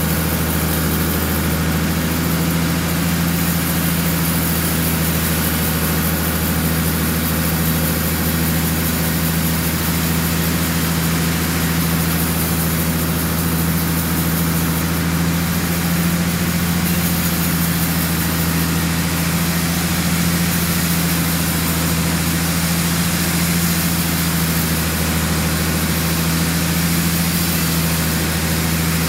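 Large sawmill band saw running with a steady low drone and an even hiss as its blade cuts lengthwise through a dry tamarind log.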